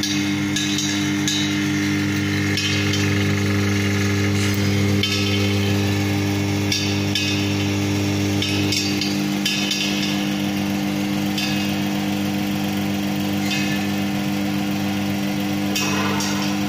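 DH50-I electric screw oil press running: a steady machine hum with short bursts of hiss every second or two. Its lowest hum drops out about halfway through.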